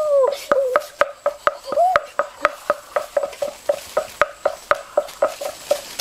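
A steady, even series of short sharp clicks, about four a second.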